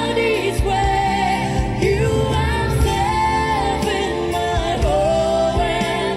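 A woman singing a Vietnamese love ballad into a microphone, with long held, wavering notes, over a full backing band with a steady drum beat.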